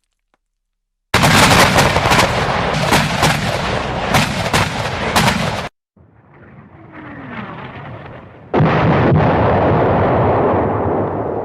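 Howitzer firing: a sudden loud blast about a second in, with several sharp cracks through it, that cuts off abruptly after about four and a half seconds. A quieter rumble then swells up before a second loud blast, which slowly dies away.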